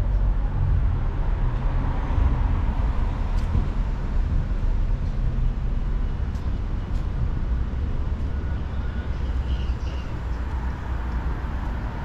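Street traffic noise: a steady low rumble of cars on the road.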